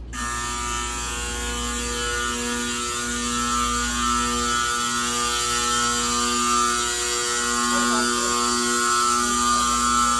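Fire alarm horn sounding a loud, steady, continuous buzz that starts abruptly.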